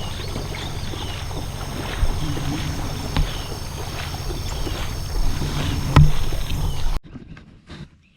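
Jet boat running on the river: a steady low rumble with water noise and a few sharp knocks, cutting off abruptly about seven seconds in.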